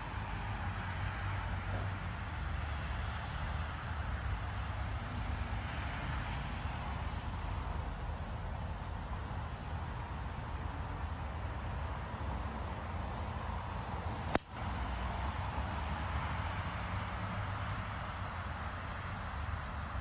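A driver's clubhead striking a golf ball off the tee: one sharp crack about three-quarters of the way through. Under it, insects trill steadily at a constant high pitch over a low rumble.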